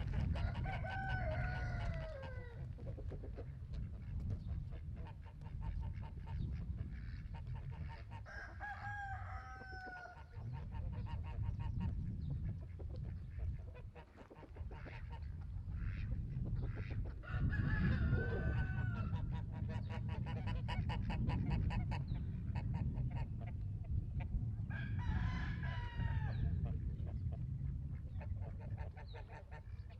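Rooster crowing four times, roughly every eight seconds, each crow a long call that falls in pitch at its end, over a steady low rumble.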